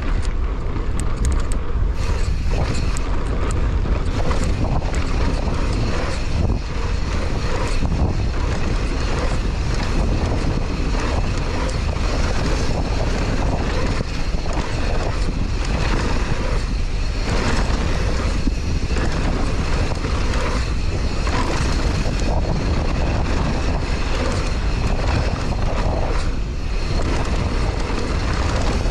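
Downhill mountain bike descending a rough trail: wind rushing over the camera microphone, with constant rattling and knocking from the bike over bumps.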